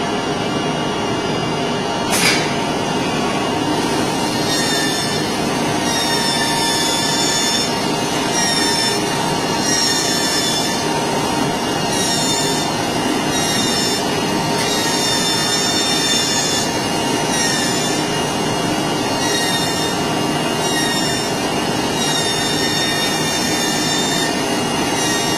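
AOKE CNC flatbed digital cutter running over coated fiberglass cloth: a steady machine noise, with short high whines coming and going every second or two as the gantry and cutting head move. A single sharp click about two seconds in.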